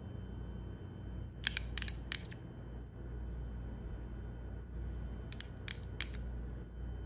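Kitchenware clinking: two sets of three quick, bright clicks with a short ring, about a second and a half in and again about five seconds in, over a faint steady hum.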